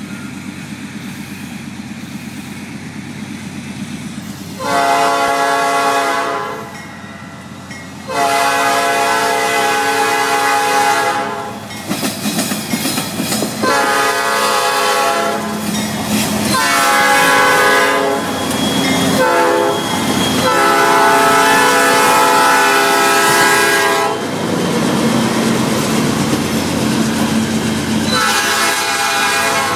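Norfolk Southern GE diesel freight locomotive's air horn sounding a series of long blasts and one short blast, several tones at once, the pattern of a grade-crossing warning. Under the horn is the rumble of the locomotives' engines and the train's wheels clattering over the diamond crossing as the train rolls past.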